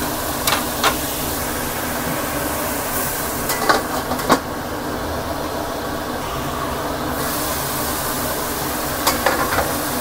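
Shredded young papaya sizzling in a wok under a stainless steel dome lid, a steady hiss of frying and steam. Sharp metal clinks come about four seconds in as the lid goes on, and again near the end as it is lifted off.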